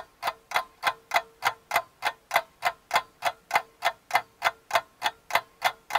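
Clock ticking sound effect: fast, even ticks at about three a second, over a faint steady tone.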